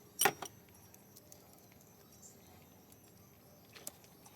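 A single short metallic clink about a quarter second in, then a few faint light ticks near the end: hand tools and loose metal parts on a motorcycle engine's clutch as the clutch nut is undone.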